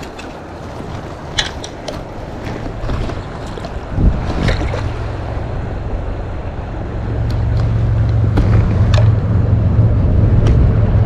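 Rushing creek water and wind on the microphone, with a few sharp knocks, then a low engine hum that comes in about seven seconds in and grows louder, like a vehicle approaching.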